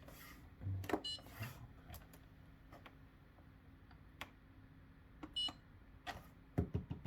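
Whirlpool WFO3P33DLXUK dishwasher control panel beeping twice, about a second in and again about five seconds in, with the light clicks of its buttons being pressed in between, as it steps through wash programmes.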